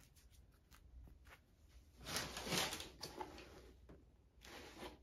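Rustling and scraping as a thin foam sneaker insole is handled and pushed back into the shoe, with a few faint clicks first and louder rubbing about two seconds in and again near the end.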